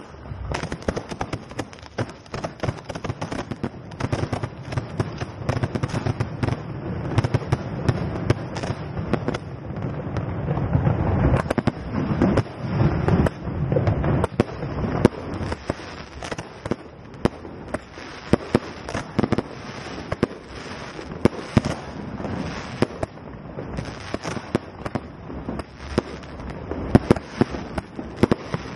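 Fireworks display firing at close range: a rapid, continuous run of bangs and crackles over a hissing background, busiest about halfway through.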